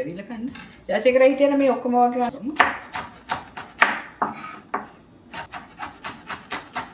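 Chef's knife slicing green chillies on a wooden cutting board: sharp knife strikes, spaced at first, then quicker and even at about five a second near the end.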